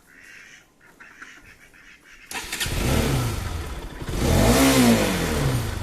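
Bajaj Pulsar NS200's single-cylinder engine starting about two seconds in and being revved twice, the pitch rising and falling each time: the bike firing up on its newly fitted battery.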